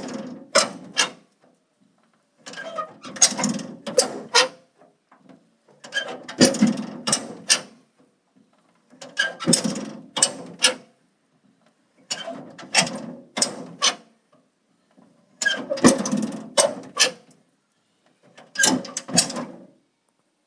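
Metal door shut over and over, about every three seconds: each time a short scraping rattle of the door ends in three or four sharp metallic latch clicks.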